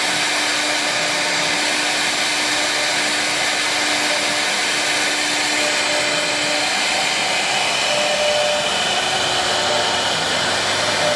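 Wood CNC router running steadily, its high-speed spindle giving an even, dense whirring noise with faint tones that shift slightly as it works.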